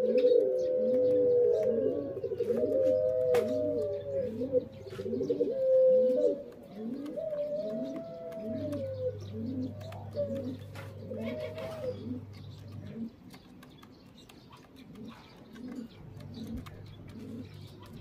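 Doves cooing in a dense chorus, many short rising coos repeating about one and a half times a second, with longer arching coos over them. The chorus is loudest in the first six seconds and thins out to a few scattered coos later.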